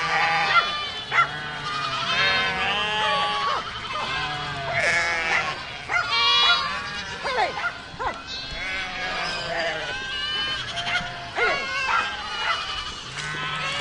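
A herd of goats bleating, many overlapping wavering calls one after another.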